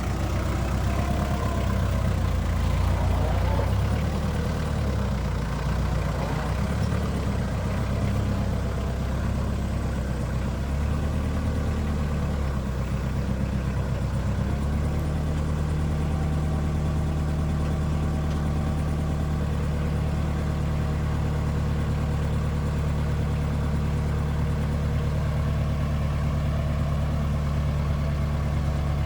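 Tractor engine running steadily. About halfway through its note shifts and then holds steady.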